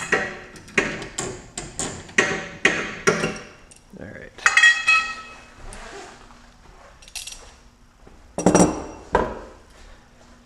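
Metal tools knocking and clinking against the sway bar end link hardware: a run of sharp knocks, two or three a second, then a ringing metal clang, and two loud knocks near the end.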